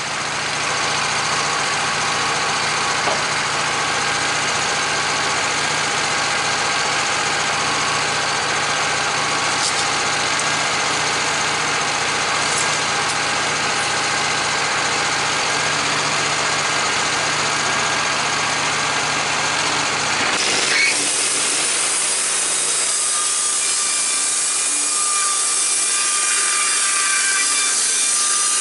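Sawmill running and its blade cutting through a log: a steady engine hum under a rough sawing noise. About two-thirds of the way through, the low engine hum drops away and the cutting noise carries on alone.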